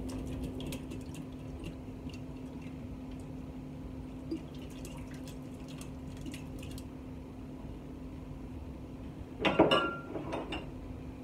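Home-canned chicken and its liquid sliding and dripping out of a glass canning jar into a pot of broth, with small wet drips and plops. About nine and a half seconds in, a louder clink and knock of glass briefly ringing, as the jar is set down, over a steady low hum.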